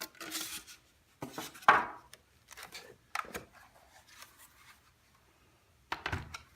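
Packaging being handled and rustled as a keyboard is unboxed: several short bursts of rubbing and scraping, the loudest about a second and a half in, with a last burst near the end.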